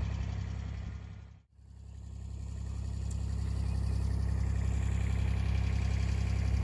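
A steady low, engine-like rumble that fades away about a second and a half in, then fades back up.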